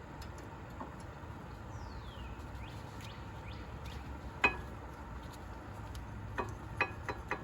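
Sharp metallic clinks of brake parts and tools being handled: one loud clink about halfway through, then four quicker ones near the end. Under them runs a steady low hum, and a few faint falling bird chirps come in the first half.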